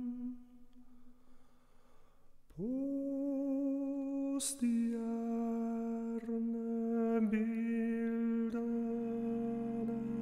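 Wordless voice humming long held notes. A note fades away, and after a short gap a new note slides up into pitch and is held with a slight waver. There is a brief sharp click about two seconds later, and a lower second note joins near the end.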